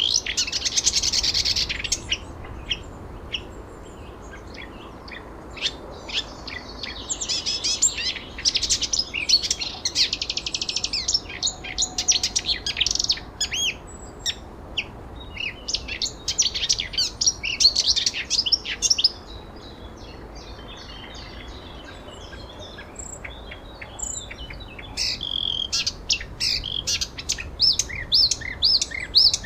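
Several birds chirping and singing in repeated bouts of quick high chirps and trills, with a couple of quieter lulls, over a faint steady background hum.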